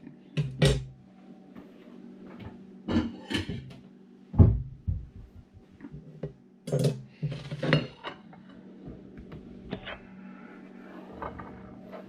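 Kitchen utensils and cookware being handled: a series of separate knocks and clinks, the loudest a low thump about four and a half seconds in, with lighter clicks later. A steady low hum runs underneath.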